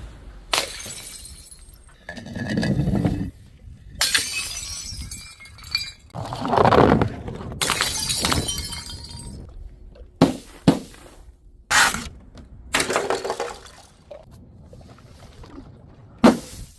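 Glass bottles smashing and shattering one after another: a series of sharp crashes, each followed by tinkling glass.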